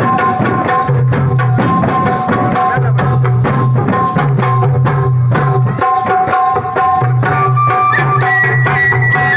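Rajasthani chang dhamal folk music: chang frame drums beating a steady, dense rhythm under a held melody line that steps up to a higher note near the end.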